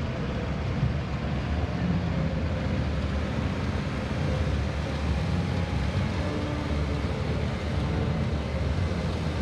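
Steady low rumble of aircraft engines from a C-17 Globemaster III's four turbofans and a C-47 Skytrain's two radial piston engines flying past together in formation.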